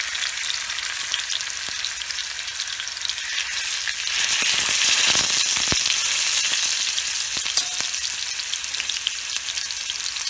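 Marinated salmon fillets shallow-frying in hot oil in a cast-iron skillet: a steady crackling sizzle. About four seconds in it swells louder as another fillet goes into the oil, then settles back.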